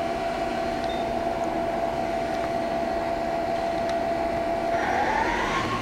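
Hyundai-WIA L400C CNC lathe spindle running at 200 RPM in the low range of its two-speed gearbox: a steady machine hum with a thin whine. Near the end the whine rises in pitch.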